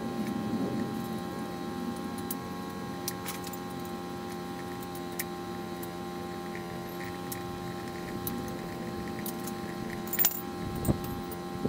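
Light metallic clinks and taps of a wrench and the top-mount hardware as the top nut is fitted on a new Bilstein B6 rear shock absorber: scattered single clicks, with a few louder knocks near the end. A steady hum runs underneath.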